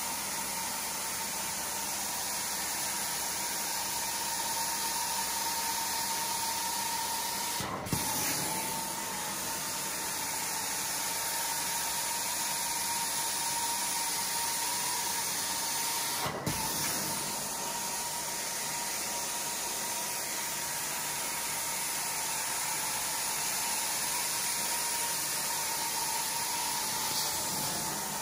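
Carpet-cleaning extraction wand drawn across wet carpet, its suction giving a steady airy hiss with a steady whine. The sound breaks off briefly twice, about eight seconds and about sixteen seconds in.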